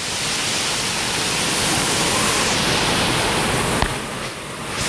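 Steady rush of water spraying and splashing from water-park play fountains, easing briefly about four seconds in.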